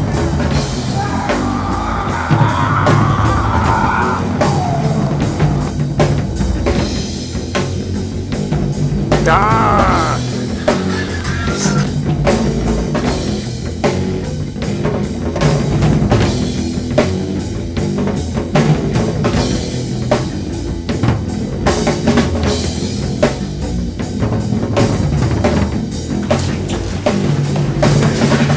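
Rock music with a steady drum-kit beat.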